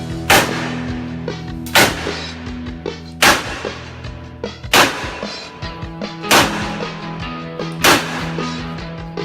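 Six loud, sharp bangs, one about every second and a half, over background music with held chords.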